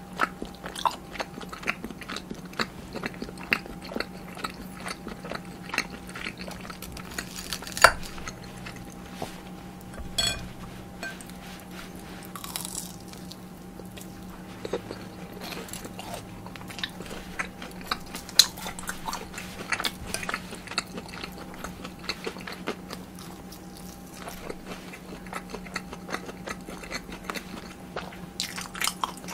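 Close-miked eating of tteokbokki and fried cheese sticks: a run of crisp crunchy bites and chewing, with sharp clicks scattered throughout and a louder crunch about eight seconds in and again near eighteen seconds, over a faint steady hum.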